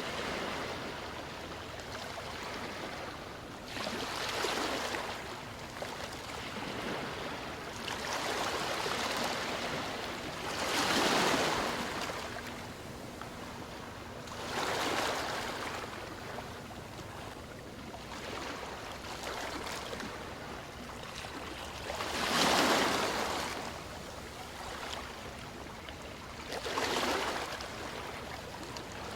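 Waves washing up a sandy beach: a steady hiss of surf that swells every few seconds, about six surges, two of them louder than the rest.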